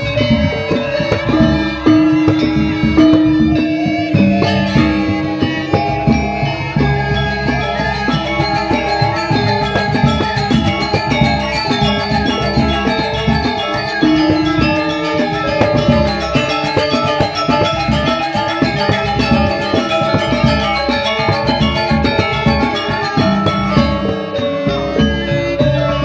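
Balinese gamelan ensemble playing a fast, busy piece: bronze metallophones ringing in quick runs of notes over kendang drumming.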